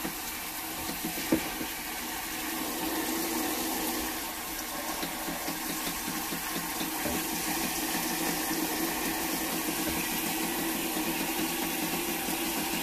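Water from a handheld shower head pouring steadily into the drum of a mini portable washing machine, filling it over the clothes inside. One brief knock about a second in.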